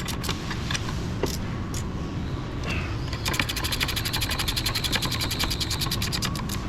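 Light, scattered metal clicks of tools working on a car's front brake assembly. About three seconds in, a fast, even run of mechanical clicks starts and lasts about three seconds.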